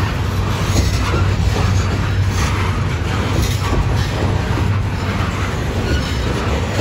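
Covered hopper cars of a freight train rolling past close by: a steady, loud rumble of steel wheels on rail, with a few faint clicks as wheels cross rail joints.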